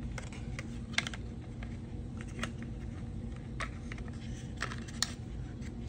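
Scattered light clicks and taps with soft rustling from hands handling a paper card and a thin white cable out of the packaging, over a faint steady hum.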